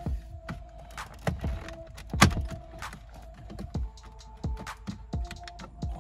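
Background music with held notes that shift about four seconds in, over irregular sharp clicks and knocks from plastic dash trim and tools being handled, the loudest knock a little over two seconds in.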